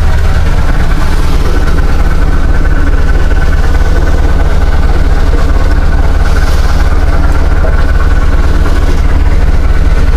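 Inboard engine of a fishing boat running steadily at idle, a loud, even low drone.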